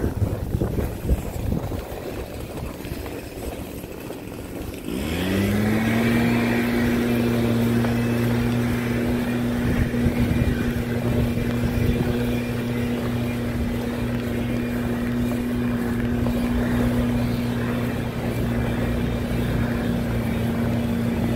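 An engine starts up about five seconds in, sweeps quickly up in pitch, then runs at a steady high speed with an even drone.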